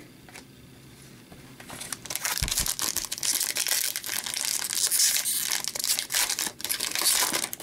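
Wrapper of an Upper Deck Series Two hockey card pack crinkling and tearing as it is ripped open by hand, starting about two seconds in.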